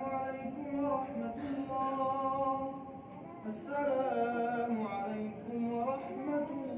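Quran recitation: a single voice chanting Surat an-Naml in melodic tajweed style, holding long drawn-out notes with short pauses between phrases.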